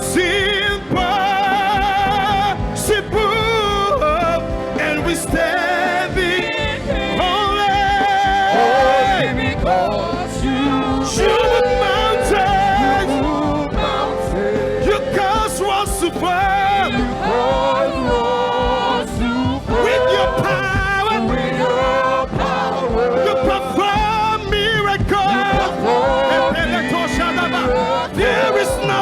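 Live gospel worship music: singing with a wide, wavering vibrato over sustained instrumental backing, with occasional sharp hits.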